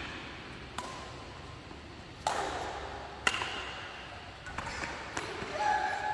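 Racket striking a shuttlecock during a badminton rally: a few sharp hits spaced a second or more apart.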